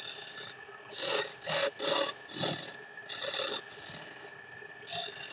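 Wood lathe spinning a wooden spindle while a hand-held turning tool cuts into it in about six short rasping bursts, the loudest between one and two and a half seconds in. The belt-driven lathe runs underneath with a steady high whine.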